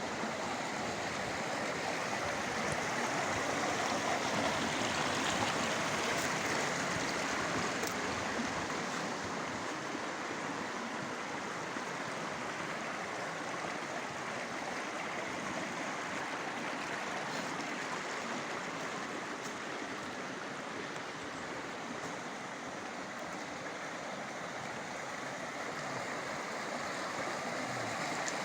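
Rushing water from a river or waterfall: a steady, even rush with no breaks.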